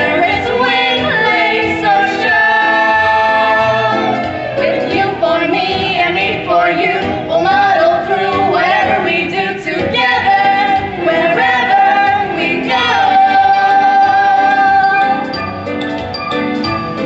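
A vocal trio of two women and a man singing a Broadway show tune with musical accompaniment, holding long notes in places.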